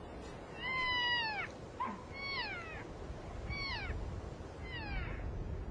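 Elk calling from a herd: a series of about five high-pitched calls, each sliding down in pitch and lasting less than a second, over faint background noise.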